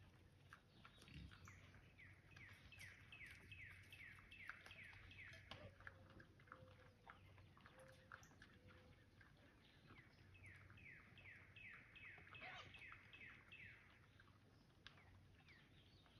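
Faint woodland bird song: a small songbird singing two quick runs of short downward-slurred chirps, about four or five a second, each run lasting a few seconds.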